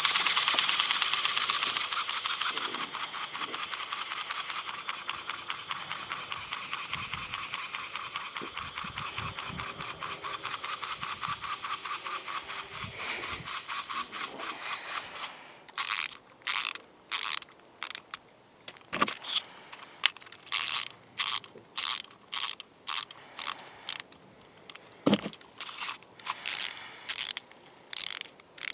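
Clockwork motor of a wind-up toy shark running: a rapid, buzzing run of clicks that starts loud and slowly fades as the spring unwinds over about fifteen seconds, then breaks into a series of short separate bursts of the same clicking.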